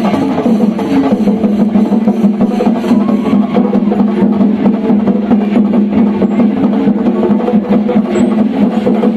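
Percussion ensemble drumming fast and without pause, dense stick strokes over a steady low drone.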